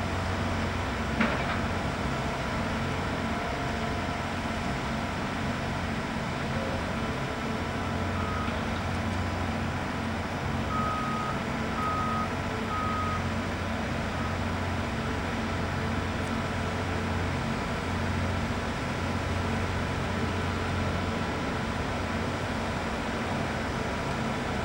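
Steady drone of heavy diesel machinery working a concrete pour, with a vehicle's reversing alarm beeping four times in the middle, the last three about a second apart. A single sharp click about a second in.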